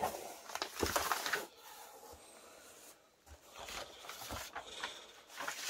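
Paper packing rustling and sliding as a loose sheet is lifted off newspaper inside a cardboard box, in two spells with a short lull between.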